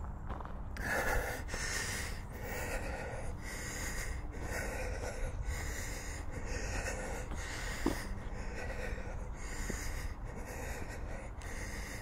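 A person breathing hard while walking, a steady rhythm of quick breaths in and out close to the microphone, over a low steady rumble.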